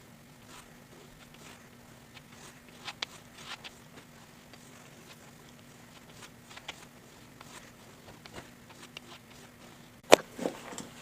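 Knife blade being stroked along a leather strop: faint, soft strokes and light ticks over a steady low hum, then a single sharp knock near the end.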